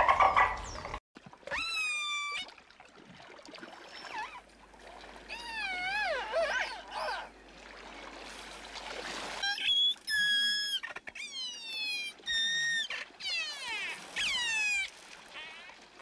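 Orca (killer whale) calls: a series of whistles and pulsed calls with upward and downward pitch glides, some wavering, with several quick falling sweeps near the end. The first second is the end of a louder, denser dolphin sound that cuts off.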